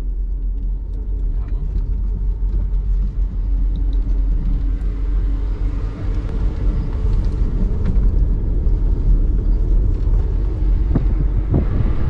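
Car driving on a dirt road: a steady low rumble of engine and tyres, with scattered knocks and rattles from the uneven surface.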